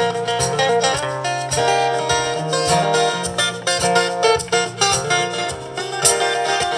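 Live acoustic music: an instrumental passage of quickly plucked guitar notes over a steady bass line, without singing.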